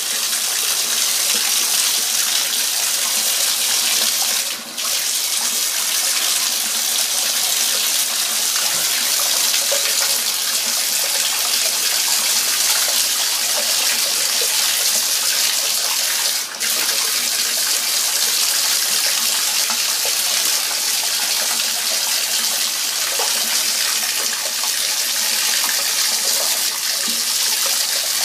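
Water running steadily from the bathtub tap into the tub, a constant rushing hiss that dips briefly twice.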